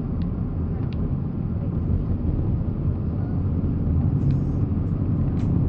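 Steady low rumble of a car driving on the road, engine and tyre noise.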